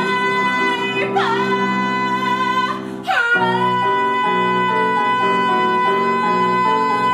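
A woman belting a Broadway show tune over instrumental accompaniment: she swoops up onto a high note, breaks briefly about three seconds in, then holds a long steady high note while the accompaniment moves through chords beneath it.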